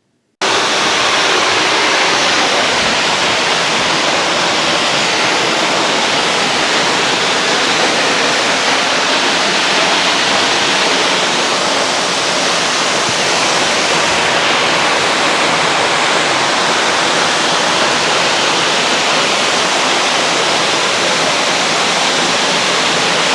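Waterfall rushing: a loud, steady roar of falling water that cuts in suddenly about half a second in and holds level throughout.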